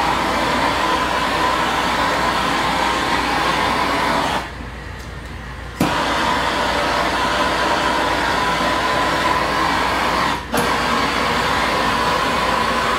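Heat gun blowing hot air with a steady fan whine as it shrinks window tint film. The noise drops away for a second or so about four seconds in, and again briefly near the end.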